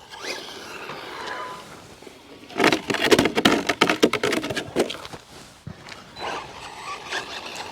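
Remo Hobby EX3 1/10 short course RC truck landing a jump and tumbling on skate park concrete: a rapid run of clattering knocks lasting about two seconds in the middle, with quieter rolling noise before and after.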